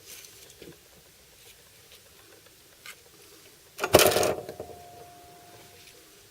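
A few light handling clicks, then about four seconds in a loud metallic clank from a metal object set down or knocked at the workbench, leaving a single ringing note that fades over about two seconds.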